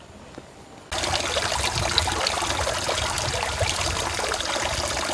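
Water pouring from a metal spout into a wooden log trough, splashing steadily onto the water's surface. It starts abruptly about a second in, after a faint, quiet stretch.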